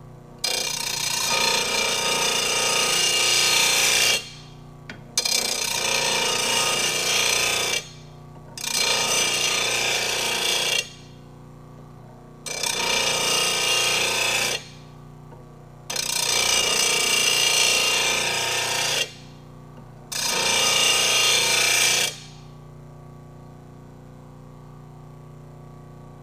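RBG 712 mower blade sharpener's grinding wheel grinding a steel Walker mower blade edge in six passes of two to four seconds each, sharpening it. Between passes, and for the last few seconds, the sharpener's motor runs on steadily with no blade on the wheel.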